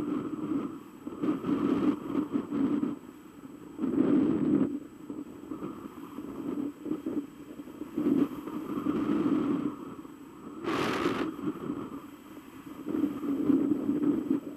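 Wind rushing over the microphone of a camera mounted on a hang glider in flight, surging and easing every second or two. One sharper, brighter gust comes about eleven seconds in.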